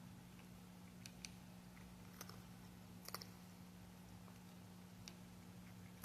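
A cat crunching dry cat treats: a few faint, sharp, irregular crunches over a steady low hum.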